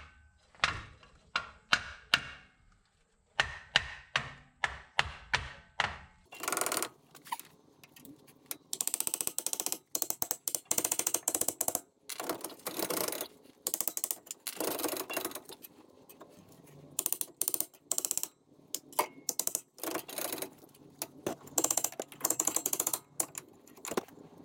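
Hand ratchet wrench clicking as nuts are run down onto the wheel studs to hold a brake drum fitted inside out on the axle. A few separate clicks at first, then from about six seconds in, long runs of quick ratcheting with short pauses between them.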